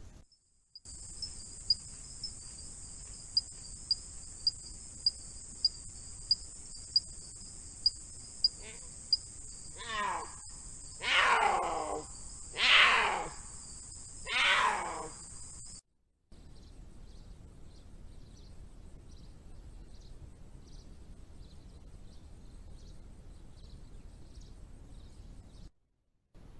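Puma calling: four loud yowls about halfway through, each falling steeply in pitch and the longest about a second. Behind them runs a steady high-pitched night chorus with a regular ticking. The sound cuts off suddenly twice where the camera-trap clips change.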